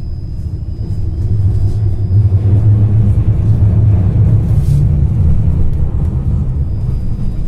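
Tram running, heard inside the passenger cabin: a steady low rumble of motors and wheels on the rails that grows louder about a second in. A thin high steady whine sounds at the start and again near the end.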